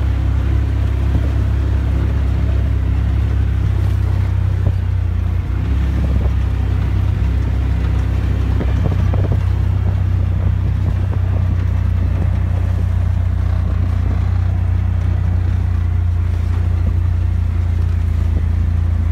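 Polaris RZR XP 1000 side-by-side's twin-cylinder engine running at a steady, even speed as the machine drives along, heard from inside the open cab with a loud low drone and rattly road noise over it.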